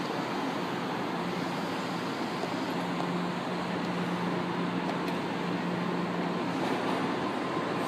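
São Paulo Metro Line 3 K-series train coming to a stand at the platform: a steady rumble and hum of the train and station, with a low steady drone joining about three seconds in.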